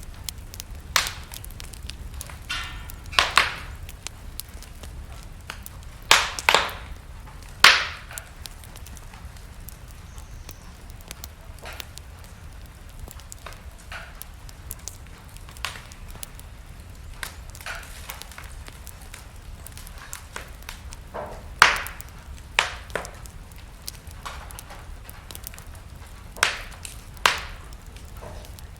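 Wood fire burning in a fireplace, crackling with irregular sharp pops and snaps, a few of them loud, over a low steady rumble.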